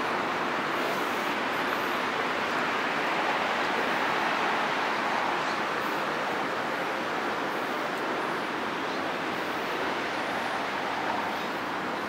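Water rushing down a concrete river channel, a steady, even rush with no breaks.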